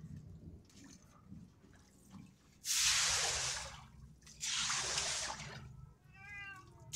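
Standing water on a waterlogged roof splashing and sloshing in two loud rushes, each about a second long, as it is cleared. Near the end a cat gives one short meow.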